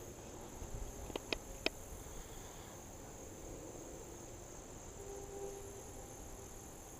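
Insects chirping steadily in a high, even band, with three sharp clicks between one and two seconds in.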